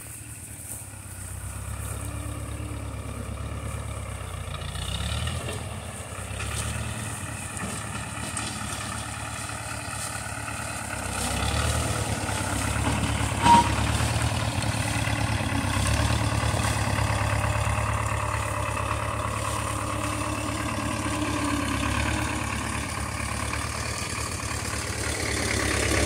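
Old tractor engine running steadily, getting louder a little before halfway through. One short sharp sound stands out about halfway through.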